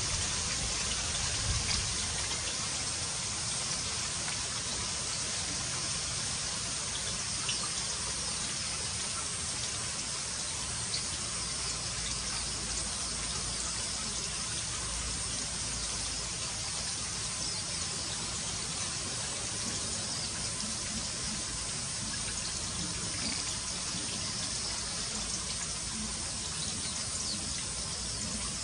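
Steady hiss of running water, even and unbroken, brightest in its upper range, with a few faint ticks.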